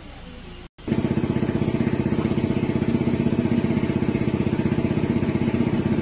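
An engine idling steadily with a fast, even pulse, starting abruptly about a second in.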